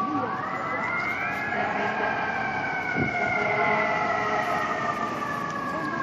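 Fire engine siren wailing: it climbs steeply in pitch over about the first second and a half, then slowly slides back down, starting to climb again at the very end.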